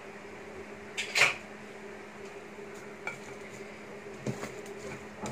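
Spatula scraping and knocking against a pressure cooker pot as the cooked kofta mixture inside is stirred, with one louder clank about a second in and a few lighter knocks after it. A steady low hum runs underneath.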